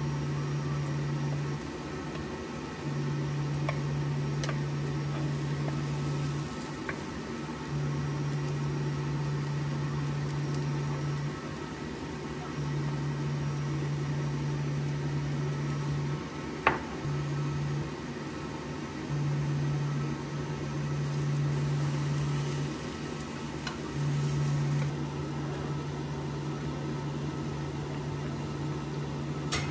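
Induction cooktop humming, its low tone cutting in and out in spells of a few seconds. A few light taps of utensils on the pan, the sharpest a little past halfway.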